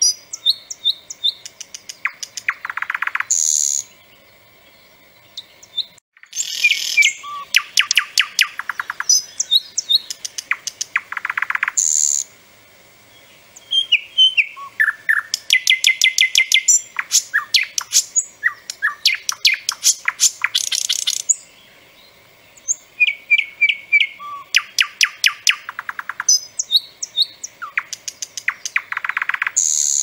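A nightingale singing: loud phrases of rapid repeated notes, dry clicking rattles and short whistles, with brief pauses between phrases.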